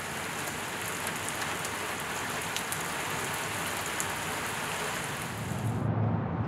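Steady rain falling on wet pavement and parked cars, an even hiss with scattered drop ticks. Near the end it cuts to a low outdoor rumble.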